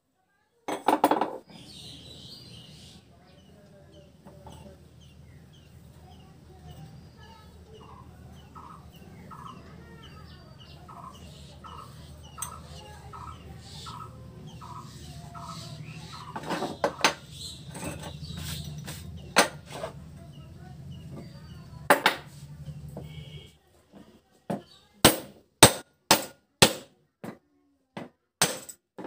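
Hammer striking metal on a workbench: about eight sharp, ringing blows, roughly two a second, in the last few seconds. Before that, a steady low hum with scattered metal clinks and a bird calling over and over, the hum stopping abruptly about 23 seconds in.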